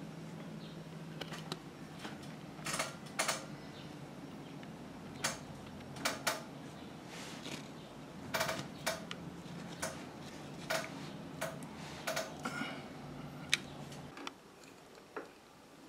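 Light metallic clicks and clinks of a screwdriver and metal parts being worked on a Pfaff 1245 industrial sewing machine's needle-bar mechanism, irregularly spaced, over a steady low hum that stops suddenly about 14 seconds in.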